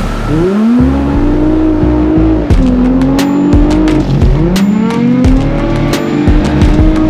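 Race car engine on a studded-tire ice track, revving up through the gears. The pitch climbs, drops sharply about 2.5 s in, then climbs again from about 4 s in.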